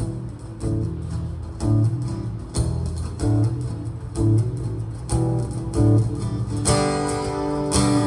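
Fender Hellcat acoustic-electric guitar strummed in a steady rhythm of chords, about one stroke a second, with two harder strums that ring out near the end.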